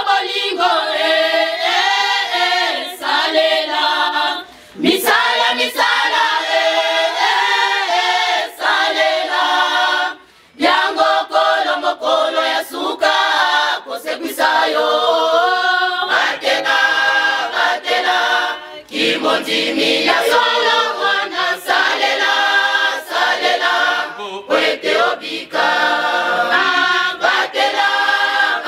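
A women's and girls' church choir singing a hymn unaccompanied, phrase after phrase with short breaths between lines.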